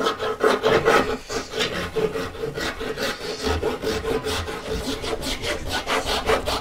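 Handsaw cutting down into a block of solid wood, a steady run of quick back-and-forth strokes rasping through the grain.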